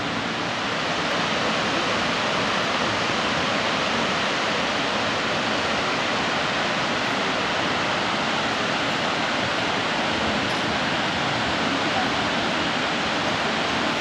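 Steady, even rush of water falling at Kirifuri Falls.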